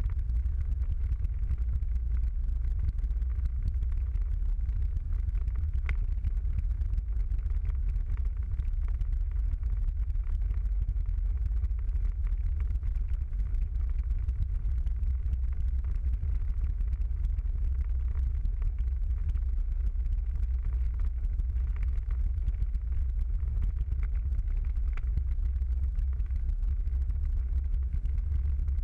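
Steady low rumble of a car driving at an even speed, engine and road noise heard from inside the cabin, with a few faint ticks.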